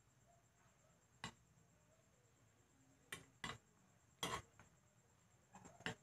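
About half a dozen short, sharp clinks and taps of a utensil against a glass cooking pot, irregularly spaced, the loudest about four seconds in, as salt is stirred into the soup.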